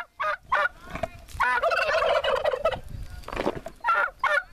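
Domestic turkey gobbling: a long, rapid warbling gobble about one and a half seconds in, among shorter repeated calls.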